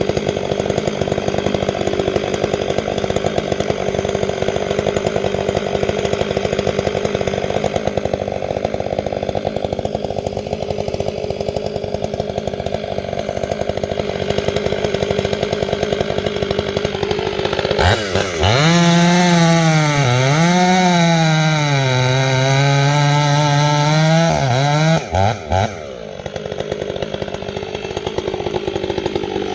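Two-stroke chainsaw running through wood. About two-thirds of the way in, a saw revs up loud for about seven seconds, its pitch sagging and recovering under load, then falls back to the rougher, lower-level running.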